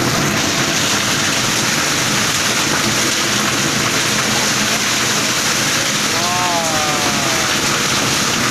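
Heavy, torrential rain pouring steadily onto a wet road and ground, a dense unbroken hiss. A brief wavering tone cuts through it about six seconds in.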